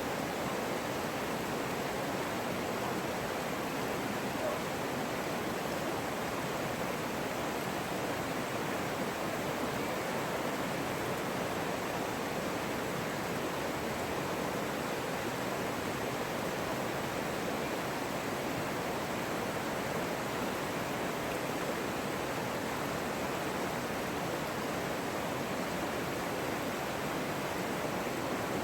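Rushing water: a steady, unbroken rush with no distinct splashes or changes.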